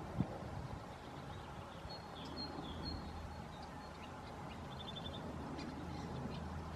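House sparrows chirping faintly: short chirps scattered through, with a quick run of notes about five seconds in, over a steady low rumble. A single short thump sounds right at the start.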